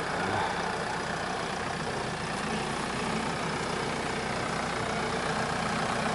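Jeep Wrangler Rubicon JK engine running steadily at low revs as the Jeep crawls slowly over rutted dirt.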